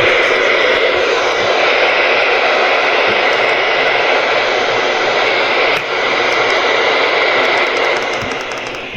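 Loud, steady hiss of FM radio static from a software-defined radio receiver tuned to the NOAA Weather Radio band, with no voice or alert tone coming through.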